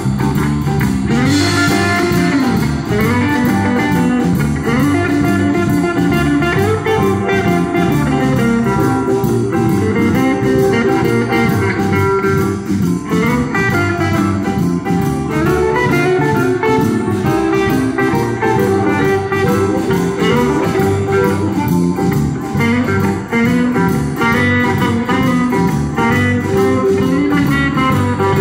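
Live blues band playing an instrumental section with no vocals: electric guitar over bass, drums and keyboard.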